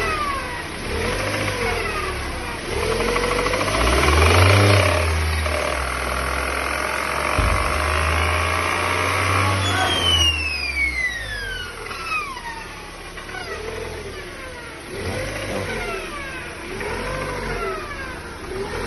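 Lada Granta's Jatco JF414E automatic gearbox whining. The engine pulls under load for several seconds, then a whistle sweeps down in pitch as the throttle is released and the car coasts. The owner suspects the differential; bearings are another suspect.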